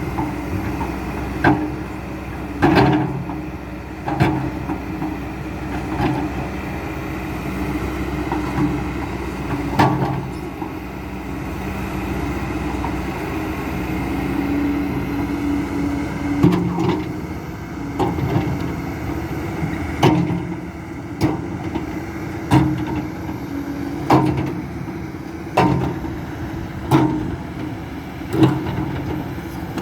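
Kobelco SK200-10 excavator's diesel engine running steadily while it works, with sharp knocks that come every second or so, about one every second and a half in the second half.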